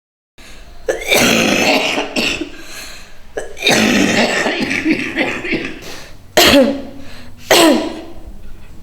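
A person coughing hard in harsh, rasping fits: a long fit about a second in, another near the middle, then two sharp single coughs near the end. It is the sound of a stubborn chest cough.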